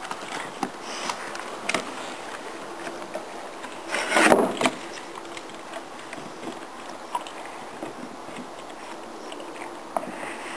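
A young boxer gnawing and pawing at a wooden stick on deck boards: scattered clicks and knocks of the stick and claws against the wood, with one louder rushing scrape lasting under a second about four seconds in.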